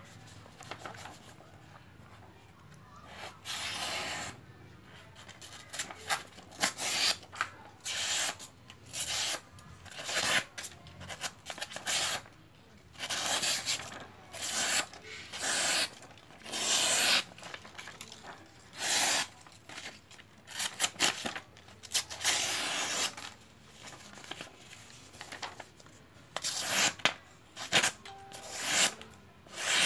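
A sharp 24 cm chef's knife slicing through sheets of paper held in the air: a run of short hissing cuts, about one a second at an uneven pace.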